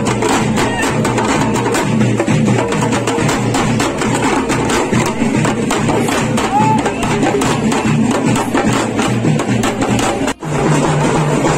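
Loud percussion music with a steady, fast drumbeat. It cuts out for an instant about ten seconds in, then the beat carries on.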